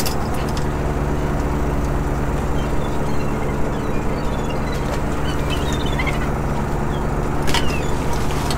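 A fishing boat's engine running steadily, a low hum of several steady tones, while gulls give short high calls a few times. A few sharp knocks come near the end.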